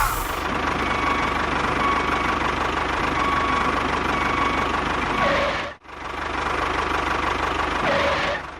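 A small motor running steadily, with a sudden break about six seconds in before it runs on again.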